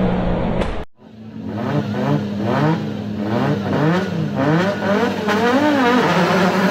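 A car engine revving up and down over and over, about twice a second, over a steady tone.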